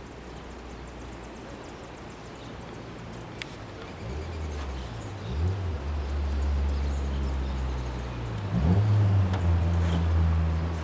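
A boat engine starts running about four seconds in and grows louder, its pitch dipping and rising twice as the throttle changes.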